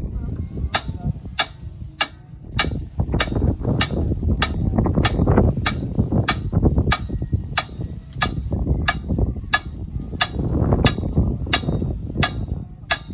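Diesel engine of a Deutz-Fahr farm tractor running with a low, uneven rumble, under a sharp tick that repeats evenly about one and a half times a second.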